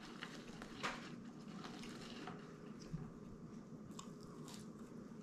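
Quiet chewing and biting as a man eats French fries, with a few faint clicks from handling the food, the clearest about a second in and near three seconds.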